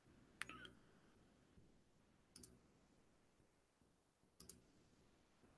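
Near silence with three faint, short clicks about two seconds apart: computer mouse clicks.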